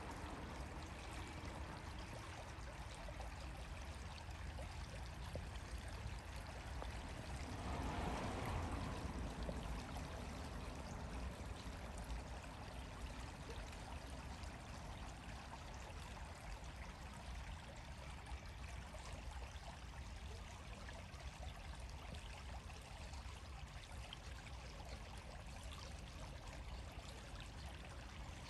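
Steady rushing outdoor noise with no distinct events, swelling briefly about eight seconds in.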